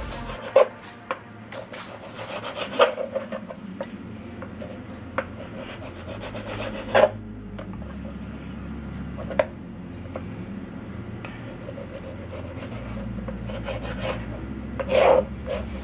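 Kitchen knife scraping and cutting against a plastic cutting board while the membrane and fat are trimmed off a raw skirt steak, with a few sharp knocks of the blade on the board.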